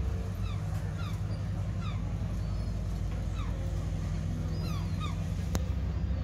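Many short, high-pitched animal calls, each falling in pitch, repeated over a steady low hum, with a single sharp click about five and a half seconds in.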